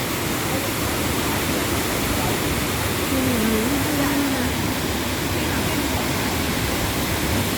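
Steady rushing of a waterfall, Wahkeena Falls, an even hiss of falling water. A brief faint voice comes through it about three seconds in.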